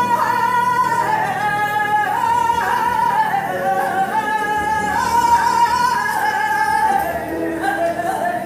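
A woman's voice singing a copla live, in long held notes with vibrato that step down in pitch phrase by phrase.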